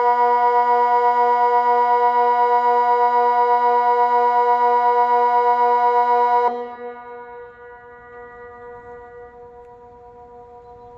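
Civil-defence siren sounding one of the low, steady tones of the Swiss water alarm, the signal that warns of a dam breach and flooding. The tone has a slight flutter and cuts off about two-thirds of the way through, leaving a much fainter steady tone at the same pitch.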